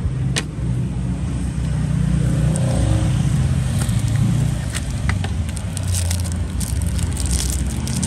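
Steady low rumble of background traffic, with a few sharp metallic clicks and small clatters from Zippo lighters being handled, one click about half a second in and several more in the second half.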